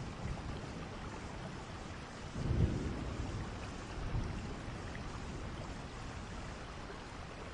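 Handling noise from a shrink-wrapped cardboard box being turned over in the hands: plastic film rustling and scuffing, with a dull low bump about two and a half seconds in and a smaller one about four seconds in.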